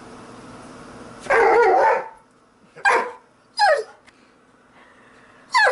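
Dog barking once, loudly, then three short yelps that fall in pitch, over a low steady hum.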